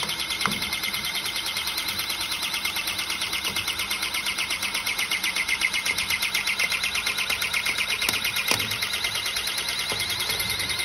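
Battery-powered hydraulic cable cutter pumping with a fast, even pulsing as its blades close through a four-core 185 mm² armoured cable, with a couple of small clicks.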